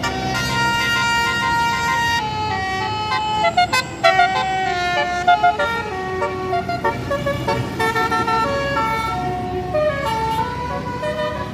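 A tour bus's basuri musical horn playing a tune of held notes that change pitch in steps, over a low engine sound.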